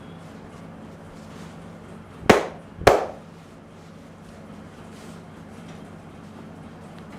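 Two loud, sharp cracks about half a second apart, from a barber's hands working a customer's head during a traditional Indian head massage with neck and hair cracking, over a steady low hum.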